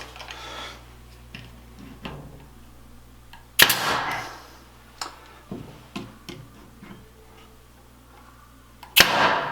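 An 18 gauge pneumatic brad nailer fires twice, about five seconds apart. Each shot is a sharp crack followed by a brief hiss, as the nails go into MDF shelf parts. Small knocks and clicks from handling the wood come between the shots.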